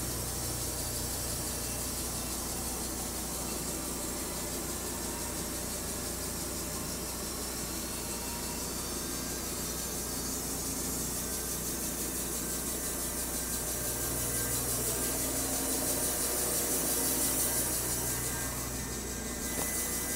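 Electric band sawmill running with its blade sawing through a log: a steady electric hum under the hiss of the band cutting wood, swelling slightly near the end.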